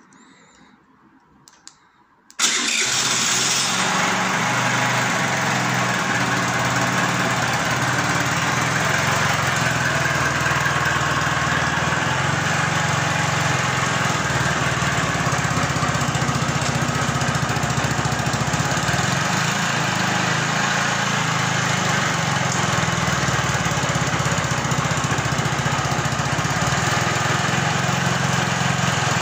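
Scooter engine starting by remote key fob, catching abruptly about two seconds in, then idling steadily after a minor repair as a check of the starter.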